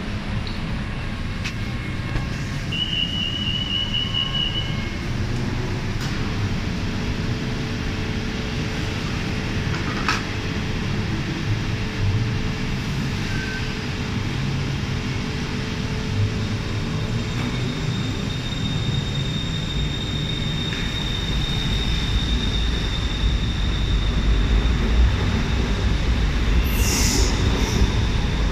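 BTS Skytrain EMU-A1 electric train departing a station platform. A short run of rapid high beeps comes about three seconds in. From about halfway a steady high whine from the traction motors builds, joined by a growing low rumble of the wheels as the train pulls out past the platform.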